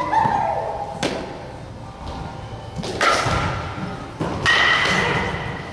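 Baseballs hitting a catcher's mitt: three sharp thuds a second or two apart.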